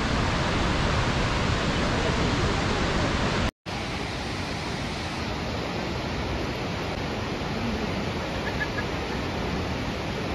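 Steady rushing noise of Kegon Falls, a tall waterfall plunging into its gorge. It cuts out for a moment about three and a half seconds in, then resumes slightly quieter.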